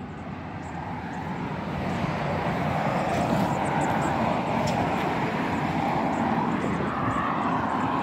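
Engine and rushing noise of a passing motor vehicle, growing louder over the first two seconds and then holding steady.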